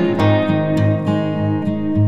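Background music: acoustic guitar strummed, chords changing in a steady rhythm.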